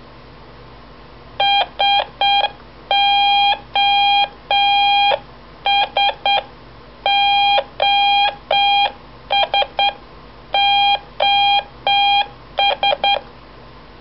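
Morse code practice oscillator on an Elenco 50-in-1 Electronic Playground beeping through its small speaker, keyed by hand with the board's push-button switch. Steady, single-pitched beeps come in alternating groups of three short and three long, sending SOS over and over.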